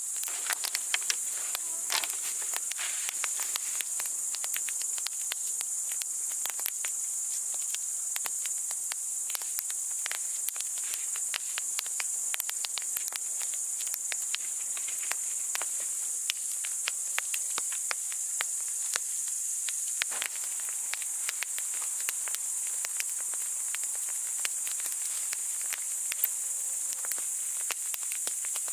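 A steady high-pitched chorus of crickets, with the wood campfire crackling and popping irregularly throughout.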